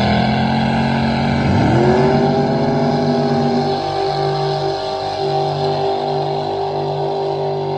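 A racing drag boat's engine at full throttle on its run. The pitch climbs, climbs again about two seconds in, then holds a steady high tone that grows slightly fainter.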